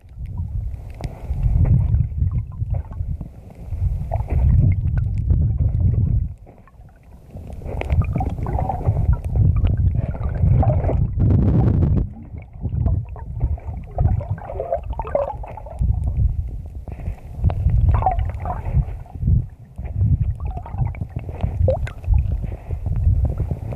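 Muffled underwater rumble and gurgling of water moving against a camera held below the surface, swelling and easing unevenly, with a few faint clicks. It drops away briefly about six seconds in.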